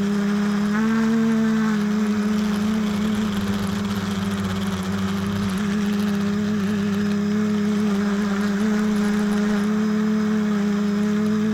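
Multirotor quadcopter's electric motors and propellers running with a steady hum, the pitch rising slightly about a second in and then wavering a little.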